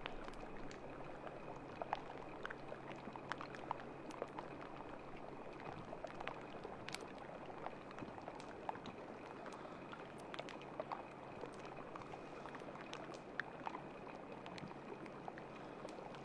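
Water lapping and trickling, with many small scattered clicks and a faint steady hum underneath.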